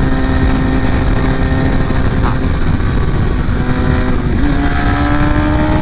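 Carbureted motorcycle engine running steadily under way, under heavy wind rumble on the microphone. About four seconds in, the engine note steps up and then climbs slowly as the bike accelerates.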